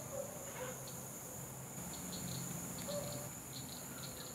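Insects buzzing steadily in a high, unbroken drone, with short high chirps in quick groups of two or three from about two seconds in and a couple of faint short low notes.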